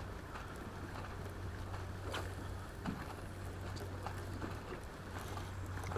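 Faint waterside ambience: a steady low hum under an even hiss of wind and water, with a few light clicks, one sharper about two seconds in.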